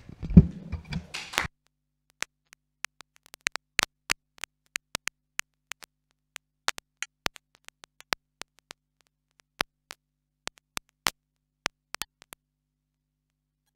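Sparse applause from a small group: separate sharp hand claps, a few a second, with dead silence between them.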